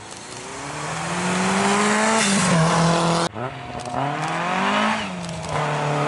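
Rally car engine accelerating hard as it approaches and passes, its pitch climbing and then dropping at each gear change. The sound breaks off abruptly about halfway through and comes back as the revving starts again.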